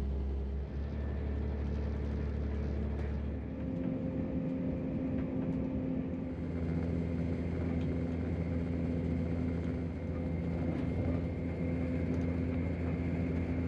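Interior sound of a Class 168 diesel multiple unit running at about 100 mph: a steady rumble of wheels on track under the drone of its underfloor diesel engine. The engine's note stands out more from about three and a half seconds in.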